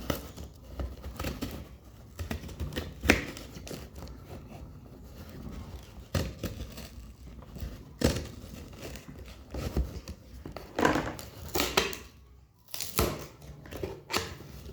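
Speaker retail box being opened by hand: packaging tearing, rustling and crinkling, with irregular clicks and scrapes and one sharp click about three seconds in.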